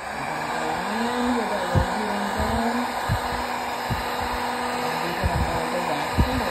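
Electric heat gun blowing hot air, coming on at the start and running steadily as it melts the top layer of wax in a candle tin. A faint wavering hum and occasional low bumps sit under the rush of air.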